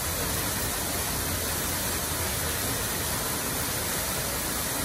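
Steady running noise of a vehicle: a low engine hum under an even rushing hiss.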